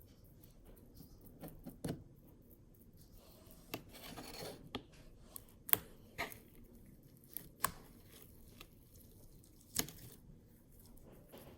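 Blue icee slime being squished and stretched by hand, giving irregular sharp pops and clicks about a second apart and a short rustling crackle about three to five seconds in.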